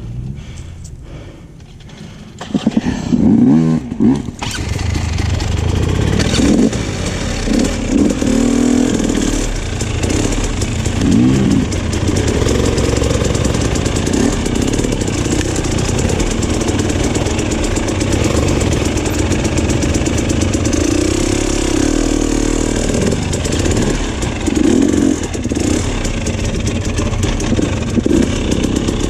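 Off-road motorcycle engine firing up about three seconds in, then running and revving repeatedly.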